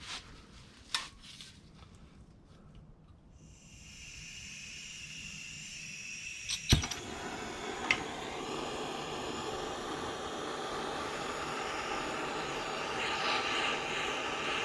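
Handheld gas torch heating a seized harmonic balancer bolt: a few light clicks, then gas hissing from about three and a half seconds in, a sharp pop near the middle, and a steady burning hiss that slowly grows louder.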